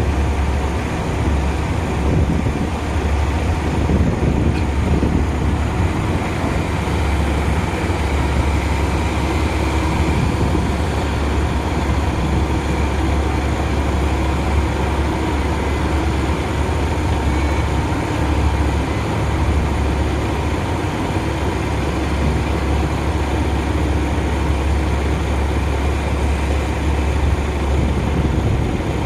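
Diesel engines of a large hydraulic mining excavator running steadily, a loud, even drone with no breaks.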